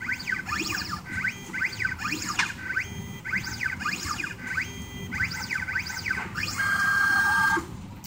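Laser Key 3D Xtreme key machine's motors whining in quick rising and falling sweeps as the tracer stylus steps around a tubular key's pins to read its cuts. Near the end a steady whine holds for about a second, then stops.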